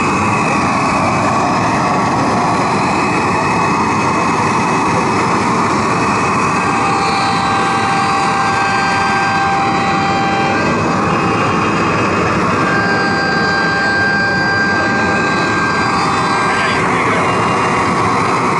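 Mini CNC router running, a loud steady machine noise, with a high steady whine that comes in twice for a few seconds.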